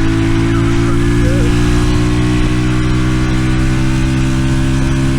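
Small single-cylinder four-stroke minibike engine with a stainless steel side-exit exhaust, running at a steady engine speed on one even note.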